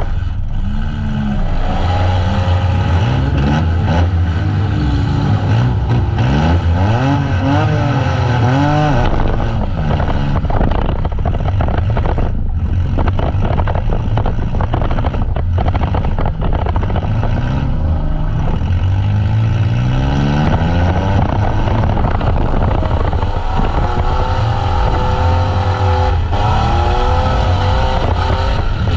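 Demolition derby van engines revving hard, their pitch rising and falling again and again as the vans accelerate and back off, over a constant loud engine rumble.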